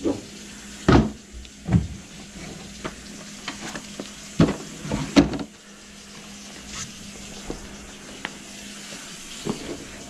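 Kitchen tap running into the sink and draining away through the just-cleared drain, a steady hiss. Several knocks and clunks of handling sound over it, the loudest about a second in and around four and five seconds in.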